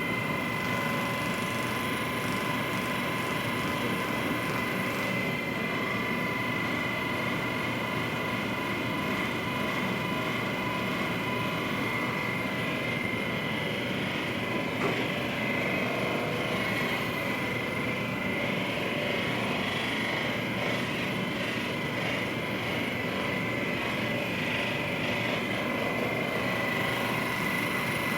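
Handheld percussion massage gun running steadily: a constant motor whir with a steady high whine.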